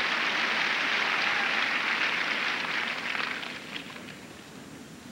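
Tennis crowd applauding after a point, fading out about three and a half seconds in.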